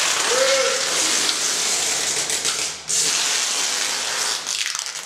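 Clear adhesive tape being pulled off the roll in long noisy strips, with a short break about three seconds in and another near the end.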